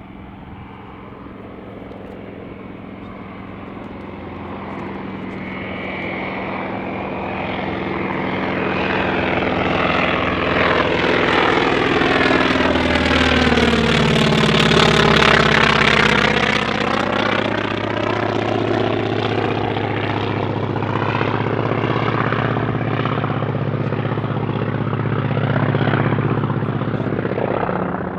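A North American T-28 Trojan's radial engine and propeller grow steadily louder as the plane approaches. It passes closest about halfway through, where the engine note drops in pitch, then carries on loudly.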